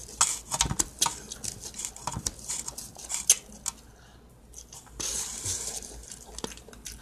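Close-up chewing of food, with many irregular crisp crunches and wet mouth clicks, and a stretch of softer rustling chewing about five seconds in.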